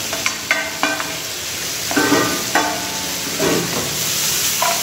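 Vegetable stir-fry sizzling steadily in a hot frying pan on a gas burner as bell pepper strips are tipped in from a steel bowl, with several sharp metal clinks of bowl and spoon against the pan in the first couple of seconds and a few more later as the pan is tossed.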